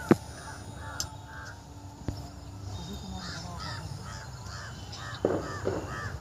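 A crow cawing in quick runs of short, harsh calls, about three a second, in two bouts. A few sharp knocks are heard, the loudest right at the start.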